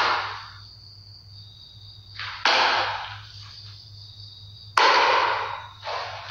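A series of sudden sharp bangs about every two seconds, each trailing off with a short ringing tail, over insects chirping steadily.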